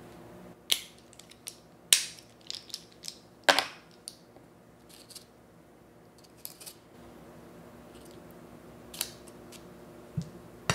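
Pieces of sweet chocolate clicking against each other in a hand and tapping into paper cups in a metal muffin tin: a run of sharp, light clicks, thickest in the first four seconds, with a few more near the end.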